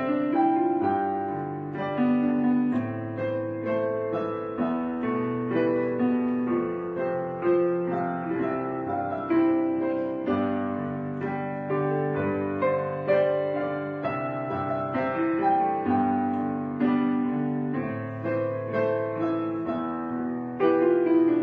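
Background piano music: slow notes and chords struck about once a second, each left to ring and fade.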